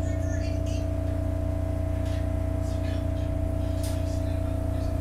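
SEPTA Market-Frankford Line subway car pulling slowly out of a station, heard from inside the car: a steady low rumble with a constant tone held over it.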